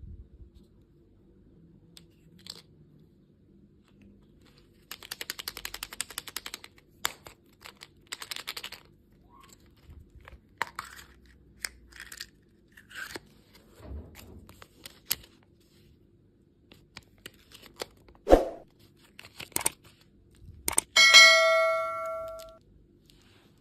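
Candy packaging being opened by hand: a quick run of ripping, then scattered clicks, taps and crinkles. A few light knocks are heard, and near the end there is a single ringing ding, like a small hard object being struck, that fades over a second or so.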